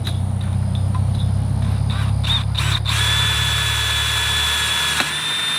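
Cordless drill boring a 3/16-inch bit through a steel pipe gate post, with cutting fluid, enlarging a smaller pilot hole. The motor runs steadily, and about halfway in a high, steady whine from the bit cutting the steel joins it, with a click near the end.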